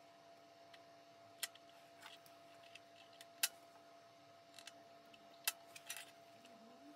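Small pocket-knife scissors snipping a thin membrane: a few sharp clicks, the loudest about halfway through, over a faint steady hum.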